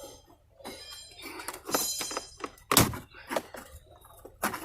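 Plastic dash trim on a 2019 Ford F-250 being handled and pulled free: a stretch of scraping and creaking, then a sharp knock about three seconds in and another near the end.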